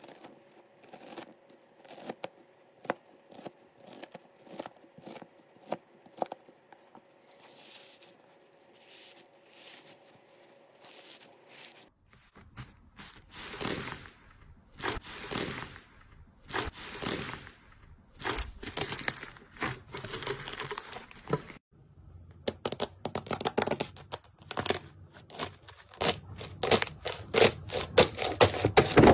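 Slime being handled: sharp little clicks and crackles at first, then denser squishing and crackling bursts about once a second, with abrupt changes about 12 and 22 seconds in as one clip cuts to the next; the crackling grows louder near the end.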